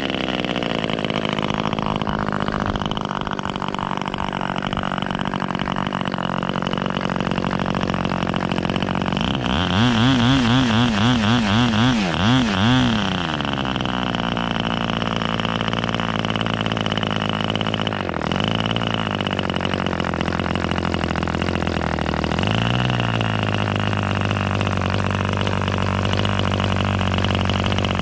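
O.S. Max 35 R/C two-stroke glow engine running on a test stand and driving a 10x6 propeller. About ten seconds in, its speed wavers up and down for a few seconds. Around the middle it dips briefly, then it settles onto a steady note for the rest.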